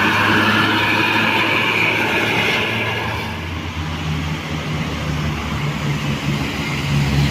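A coach bus's diesel engine running as it drives past. About three seconds in, a higher whine fades and a lower, steady engine note takes over.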